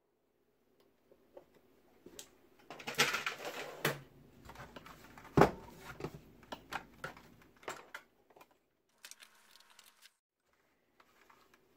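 Plastic case of a Ryobi One+ P117 battery charger being handled on a workbench: a scraping rustle as it is turned over, then a single sharp knock about five seconds in as it is set down. Light clicks and rattles follow as its power cord is moved.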